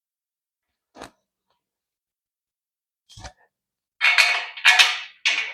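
Assembly noises from a metal bed frame: a light click, a low knock, then three loud crackling, rustling handling sounds about a second apart near the end.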